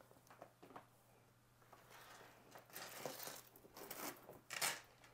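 Quilted leather handbags being handled and turned around on a tabletop: a series of soft rustles and brushes of leather, louder around three seconds in, with a brief sharper scrape near the end.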